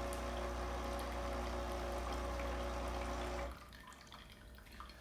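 Nespresso capsule machine's pump buzzing steadily as it pushes hot water through the empty brewing chamber for a rinse. The buzz stops suddenly about three and a half seconds in, and faint dripping follows.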